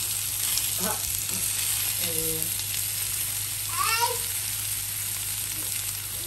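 Oxtails searing in oil in a cast-iron skillet: a steady sizzle of frying over a low steady hum. A brief high, voice-like call rises and falls about four seconds in.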